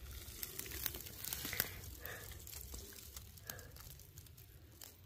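Faint crackling and rustling of dry leaf litter and twigs underfoot, with scattered small clicks.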